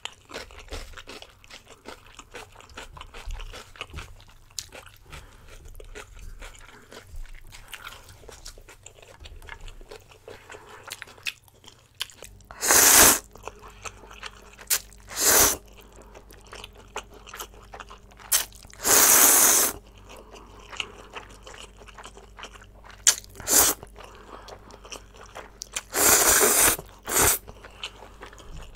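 Close-miked eating of spicy instant noodles: quiet chewing at first, then from about twelve seconds in, several loud slurps of noodles, each a second or less.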